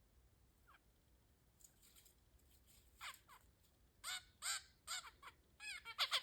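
Zebra finches giving short nasal calls. After about three seconds of quiet, a string of about seven calls, each dropping in pitch, comes faster and faster toward the end.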